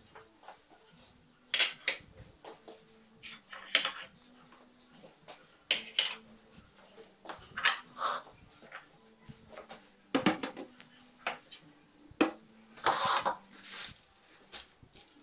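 Kitchen handling noises: scattered knocks and clinks of a drinking glass and a mixing bowl being picked up and set down on a countertop, with a longer rustle of a plastic flour bag near the end.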